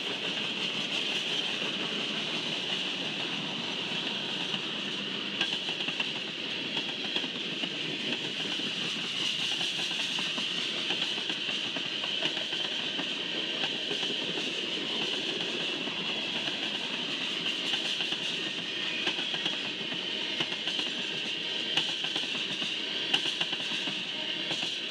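Freight cars, mostly tank cars, rolling past on the rails: a steady rumble of steel wheels with scattered sharp clicks from the wheels crossing rail joints. A steady high-pitched hiss runs through it.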